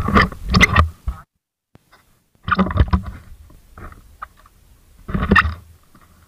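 Action-camera handling noise: three short bursts of rubbing and buffeting on the microphone as the camera is moved around, with near silence between them.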